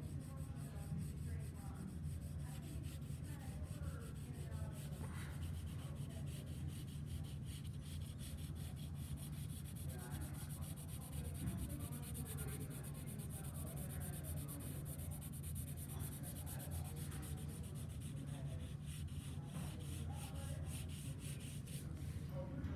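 Wooden graphite pencil shading on paper: quick, continuous strokes of lead rubbing across the sheet, over a low steady hum.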